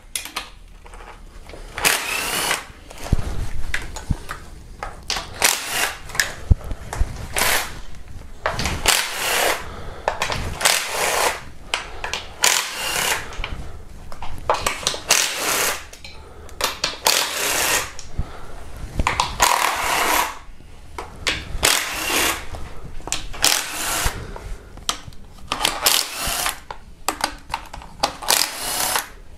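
Power ratchet spinning out valve cover bolts in short bursts of about a second each, one or two seconds apart.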